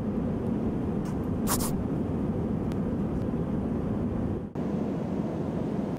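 Steady low drone of an airliner's passenger cabin: engine and airflow noise, with a few faint clicks about one to one and a half seconds in and a brief drop about four and a half seconds in.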